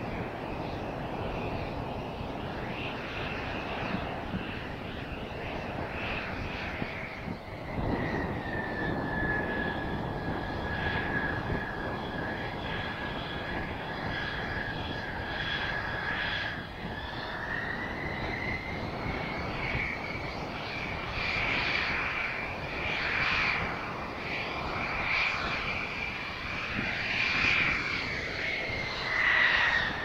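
Mitsubishi F-2B fighter's single F110 turbofan running as the jet taxis: a steady high whine over a low rumble. The whine drops in pitch about eight seconds in and climbs again a little past halfway.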